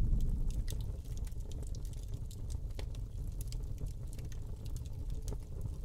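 The tail of an animated logo sound effect: a low rumble that fades over the first second and then holds faintly, with sparse faint crackling clicks.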